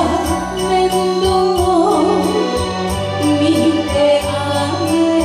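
Enka song with a steady light beat and a backing accompaniment, a woman singing the melody into a microphone.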